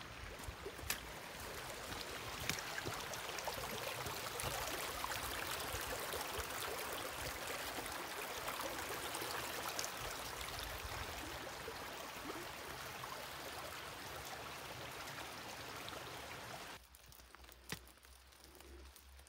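Small forest creek flowing and trickling as a steady rush of water, with a few footsteps on the dirt trail; the water sound cuts off abruptly near the end.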